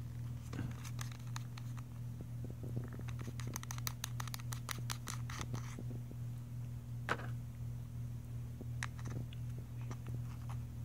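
Small clicks and scratches of a clip-on phone camera lens being taken apart and refitted by hand, with a quick run of ticks, like threads being turned, from about three to six seconds in and a sharper click about seven seconds in. A steady low hum lies underneath.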